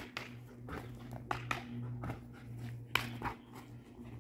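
A Belgian Malinois jumping and scrambling around a person on artificial turf: scattered thumps and scuffs of paws and feet, with a sharper knock about three seconds in.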